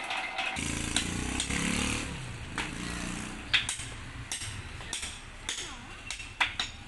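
A petrol-engine walk-behind concrete saw stops cutting about half a second in, and its engine drops to a low rumble for a couple of seconds. Then hammer blows on a steel chisel knock at the saw-cut concrete, several sharp irregular strikes.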